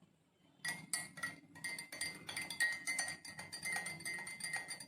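Metal spoon stirring honey into tea in a drinking glass, clinking against the glass several times a second with a light ringing tone. It starts about half a second in.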